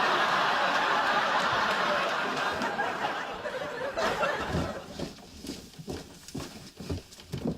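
Studio audience laughter, loud at first and fading out about four seconds in, followed by faint scattered knocks and rustles.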